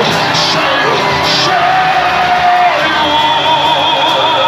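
Loud worship music with a congregation crying out and singing over it; a long wavering held note comes in about halfway through.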